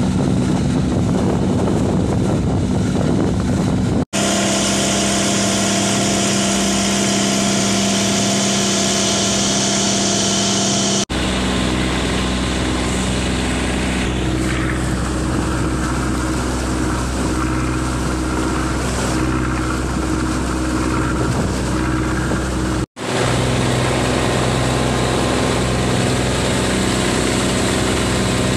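Flatboat's Mitsubishi 4DR5 four-cylinder diesel engine running steadily at cruising speed, with water rushing along the hull. The drone breaks off abruptly and resumes about three times, each time a little different in pitch.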